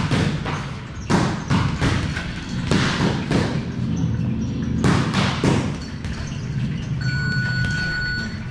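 Boxing gloves smacking a double-end bag, which snaps back on its cords. The sharp hits come in quick clusters over the first six seconds, then thin out.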